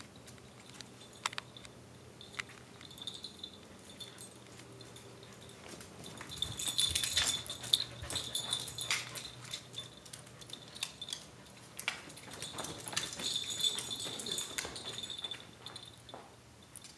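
A corgi running about on hard floors: its claws click rapidly and its collar jingles, in two busy bouts about six and twelve seconds in, with scattered single clicks between them.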